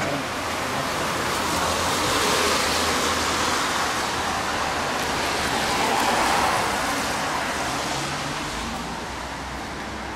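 Road traffic noise: passing vehicles as a broad rush that swells up and fades twice, loudest about two and a half and six seconds in.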